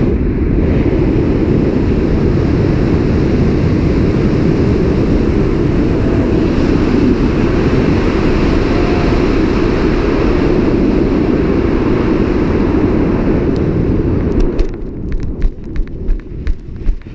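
Wind rushing over the camera's microphone as a skydiver glides down under a parachute canopy. It cuts off near the end, followed by a quick run of thumps, about two a second: the skydiver's feet touching down and running out the landing on grass.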